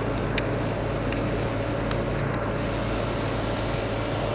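Steady drone of a car's engine and tyres on a snowy highway, heard from inside the cabin, with a few faint clicks.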